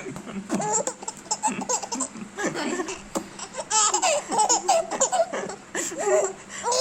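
Baby laughing in repeated short bursts of giggles, with quick breaths between them.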